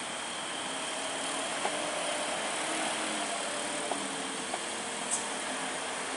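Road traffic passing: the engines of a light truck, cars and motorcycles running over a steady hiss, with a few faint clicks.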